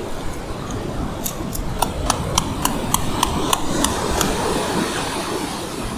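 Surf washing steadily onto the beach, with a quick run of sharp clicks, about three or four a second, from about a second in until about four seconds in.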